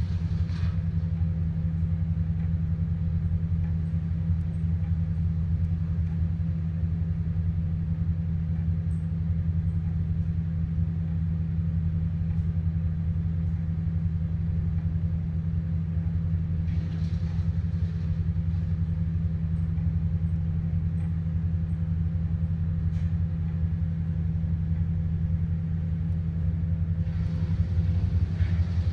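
A large engine running steadily at constant speed, a low even drone, with a brief higher hiss about seventeen seconds in and again near the end.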